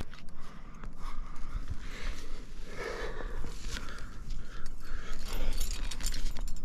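A rock climber breathing hard with effort while climbing, with metal climbing gear clinking and scraping.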